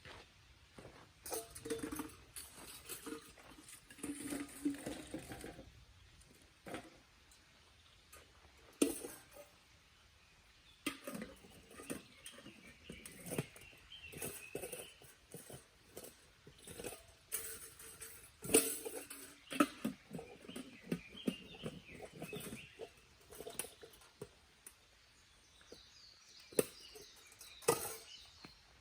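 Irregular knocks, clicks and rustles of objects being handled, with faint bird chirps.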